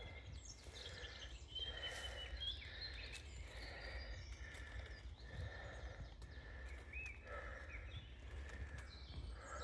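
A person's footsteps and hard breathing while climbing a steep forest path, coming in soft swells about once a second, with a few short bird chirps.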